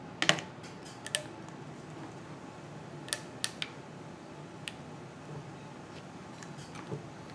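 A few light, sharp clicks and taps of small metal parts and a hand tool being handled on a model engine during disassembly. The loudest comes just after the start, with a quick group of three about three seconds in, all over a low steady hum.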